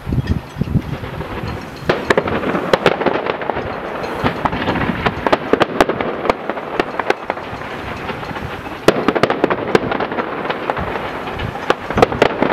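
Fireworks display: a dense run of crackling and sharp bangs that thickens about two seconds in, with a cluster of louder cracks around nine seconds.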